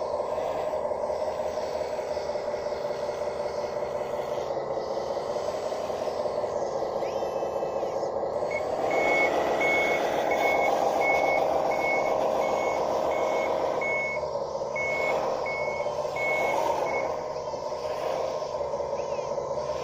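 A 1:12-scale model bulldozer's engine sound runs steadily and rises and gets louder a little under halfway through as it starts reversing. A high reverse-warning beep then sounds about once a second for several seconds before it stops.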